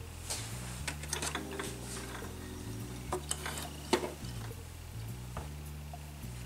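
Soft clicks and small rustles of a hand threading a Brother CS-6000i sewing machine, one sharper click about four seconds in, over quiet background music with a low bass line.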